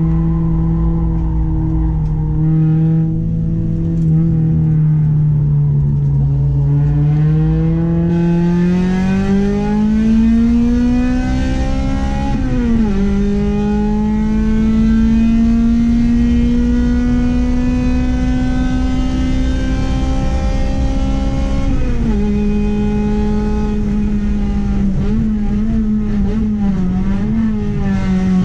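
Honda H22A 2.2-litre four-cylinder engine of a Honda Accord under hard acceleration at high revs. Its pitch climbs steadily, falls sharply at an upshift about 13 seconds in, climbs slowly again, drops about 22 seconds in, then holds with small rises and dips.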